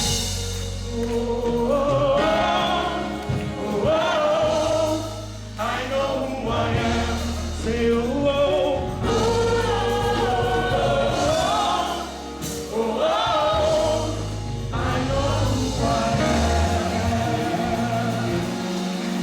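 Live gospel music: a choir singing over instrumental backing with a steady bass line.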